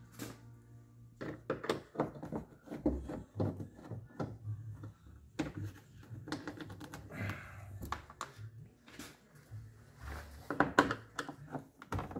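Irregular small metal clicks and taps as loose Phillips screws are handled and a hand screwdriver works at the screws along the bottom of a truck's door panel, with a louder cluster of clicks about ten seconds in.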